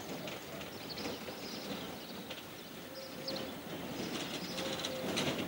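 Birds chirping outdoors: scattered short high chirps and a few brief lower notes, growing busier and louder near the end.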